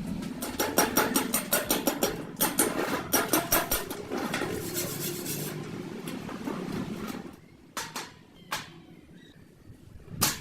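A quick run of knocks and clatter that eases off after about five seconds, leaving a few single knocks.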